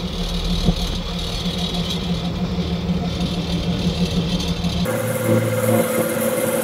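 A boat engine running steadily with a low rumble and hum. About five seconds in, the sound changes abruptly: the deep rumble drops away and a higher steady hum takes over.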